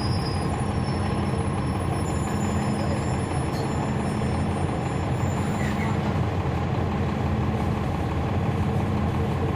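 Cummins ISL9 diesel engine of a NABI 40-SFW transit bus, heard from on board, running at a steady, unchanging speed.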